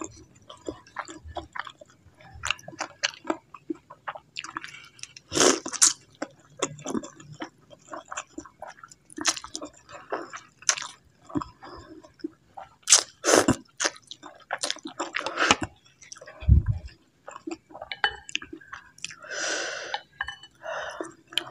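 Close-miked eating of tapioca meatballs (bakso aci) and instant noodles in broth: wet chewing and mouth clicks with occasional noodle slurps. A single low thump comes about three-quarters of the way through.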